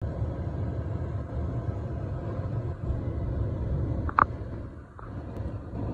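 Low, steady rumble inside the cabin of a Rolls-Royce Cullinan driving slowly along a rough dirt track: tyre and suspension noise. About four seconds in there is one brief high-pitched chirp.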